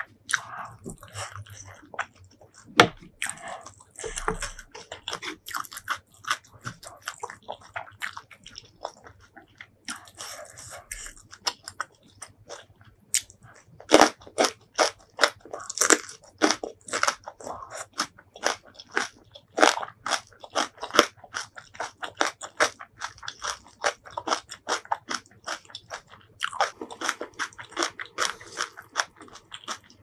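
Close-miked eating: crisp crunching bites into stuffed green chili kimchi and wet chewing in quick succession, densest around the middle.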